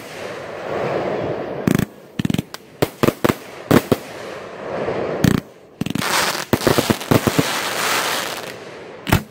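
Display-grade 1.3G fireworks, cakes and aerial shells, bursting overhead: a string of sharp bangs, some coming in rapid clusters, with a rushing noise between them.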